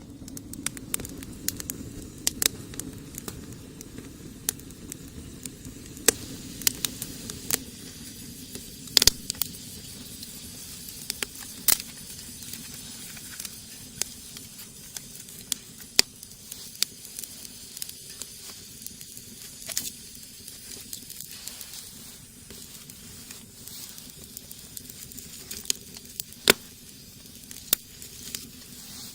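Wood fire burning in a rocket stove, crackling with irregular sharp pops over a steady low rush.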